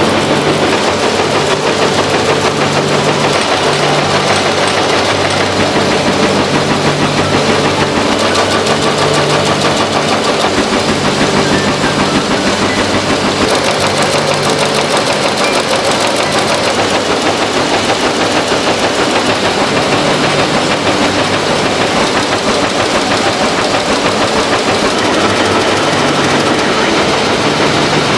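Smit Textile terry-towel weaving looms running at full speed: a loud, fast, even mechanical clatter.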